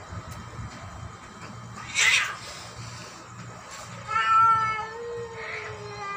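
Cat fight sounds: one short, sharp hiss about two seconds in, then a loud, wavering yowl from about four seconds in that trails off into a low, drawn-out growl.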